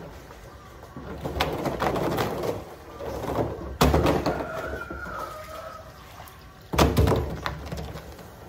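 Water from a garden hose splashing inside a blue plastic drum as it is rinsed out, with two sharp hollow knocks on the drum a few seconds apart.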